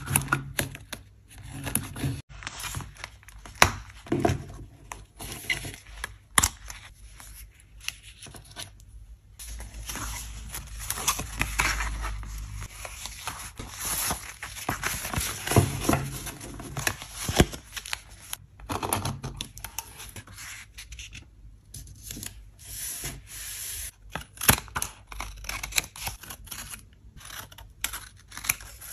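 Paper being handled on a small spiral-bound journal page: irregular rustling, rubbing and tearing of paper scraps and stickers, with frequent short sharp clicks.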